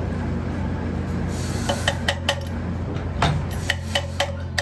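Metal parts clinking and knocking in irregular sharp strikes that start about a second and a half in, each with a short ring, over a steady low hum.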